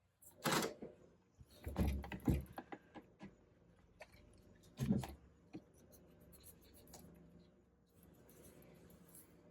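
Handling noises on a craft table: a few thumps and knocks with small taps between them as a MISTI stamp-positioning tool is brought out and set up.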